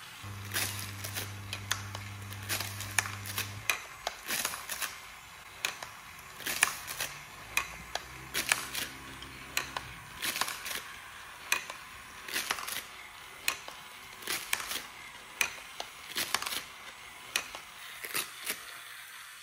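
Motor-driven wooden CrunchLabs belt toy running, its moving parts clicking at a fairly even rate, about once or twice a second. Twice, a low buzzing tone from a foil party blower being blown: once in the first few seconds and again around the middle.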